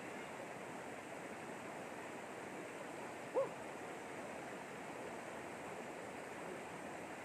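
Shallow river rushing steadily over a rocky bed and small rapids. About three and a half seconds in, one brief pitched call rises above the water.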